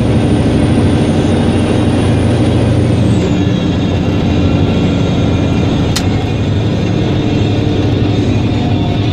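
Semi truck's diesel engine and road noise heard inside the cab while driving, running steadily. A high whine drops away about three seconds in, and there is a single sharp click about six seconds in.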